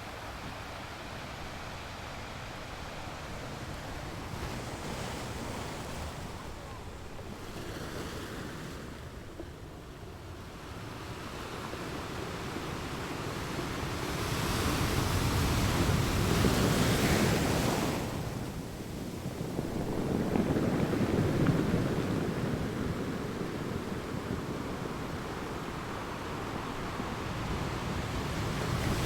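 Ocean waves washing in and breaking, a steady rush that swells and falls back. The largest wave breaks about halfway through, and another follows a few seconds later.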